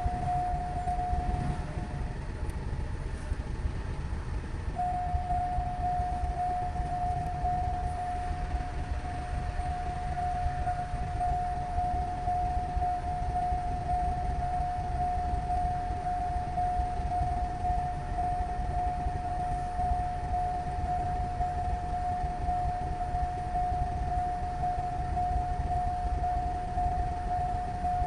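A steady high tone with a constant low rumble beneath it. The tone stops about two seconds in and comes back a few seconds later.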